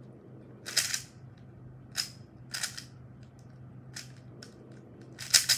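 Plastic layers of a YJ RuiLong 3x3 Rubik's cube being turned by hand: a handful of sharp clacks at uneven gaps, the loudest near the end.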